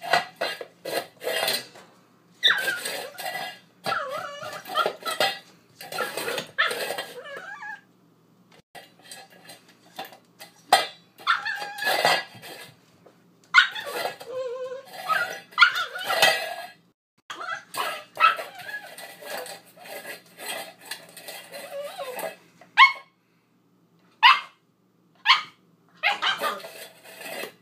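Eight-week-old husky/poodle mix puppy barking and growling in repeated bursts as she plays, with a few short sharp yips near the end. A stainless steel dish clatters on the tile floor among the barks.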